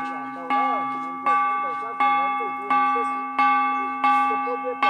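Ritual gong struck by hand at a slow, even beat, about seven strikes here, each ringing with a metallic tone and fading before the next. A low chanting voice runs underneath.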